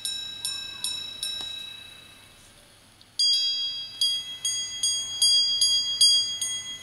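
A minute repeater watch striking the time on its gongs, heard through a small amplifier's speaker: a steady run of bright, ringing strikes about two and a half a second dies away a second or so in, then after a pause of about two seconds a second run of strikes with a different tone starts up.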